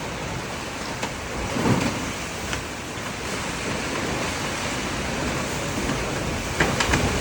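Strong wind blowing and buffeting the microphone: a steady rushing noise, with a few brief knocks.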